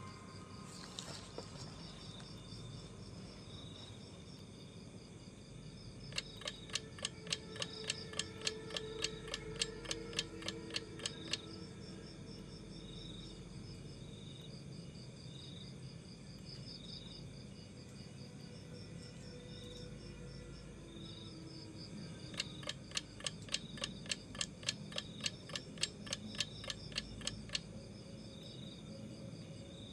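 Night insects chirring steadily in a high pitch with a slow pulse, joined twice by a run of sharp ticks, about three a second for some five seconds each.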